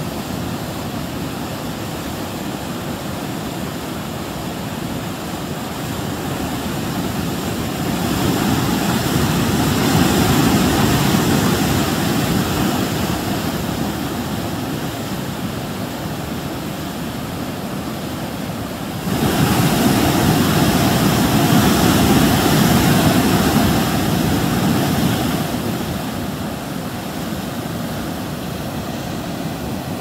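River rapids: muddy water rushing in white water over a rock slab. The steady rush swells for several seconds about a quarter of the way in, then jumps louder suddenly about two-thirds of the way in before settling back.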